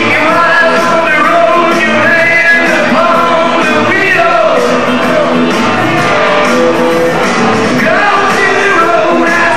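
Loud music with singing, steady throughout.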